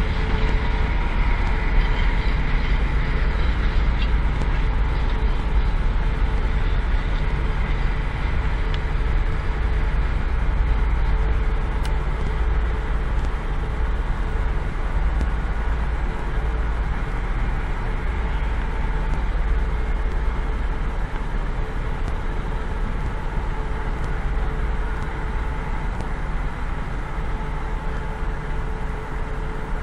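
PKP class SU46 diesel-electric locomotive's engine running steadily while shunting, a low drone with a steady whine over it, fading slightly near the end.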